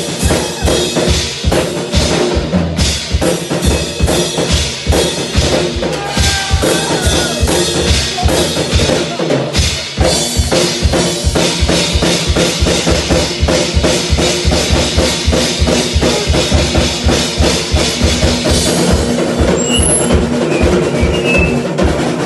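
Live drum kit solo: a steady run of fast bass-drum strokes under snare hits and cymbal crashes.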